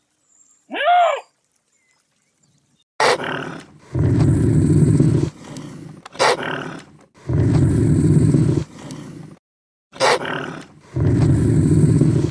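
A short high call about a second in, then a large animal roaring three times, about three and a half seconds apart: each roar starts sharply and runs on as a loud, low, drawn-out sound for over a second.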